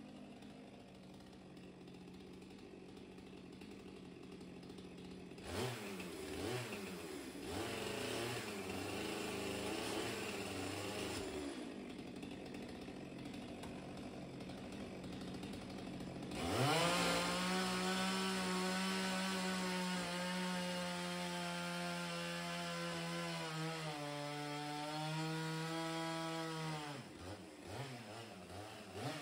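Stihl two-stroke chainsaw running low for the first few seconds, then revving unevenly as it is worked into pine wall boards. From a bit past halfway it runs at full throttle with a steady high note that sags under the load of the cut, dipping out briefly near the end.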